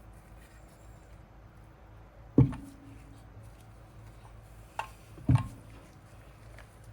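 Three short knocks of chainsaw parts being handled on a workbench: a sharp one about two and a half seconds in, a small one near five seconds, and another sharp one just after it.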